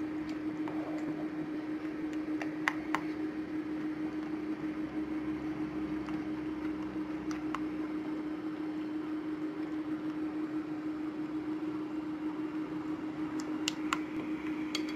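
A plastic spatula stirring runny glue-and-water slime mixture in a glass bowl, with a few light clicks of the spatula against the glass, over a steady low hum.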